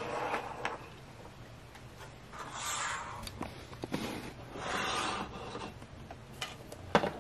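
Small plastic dollhouse furniture handled and slid about on a wooden tabletop: three brief rubbing, scraping swishes and a few light clicks, then a sharper knock near the end as the little wardrobe is set down.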